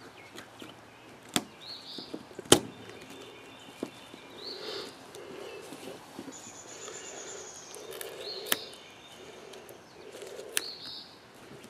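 A few sharp clicks of hand cutters snipping through a skinned muskrat's tail, the loudest about two and a half seconds in.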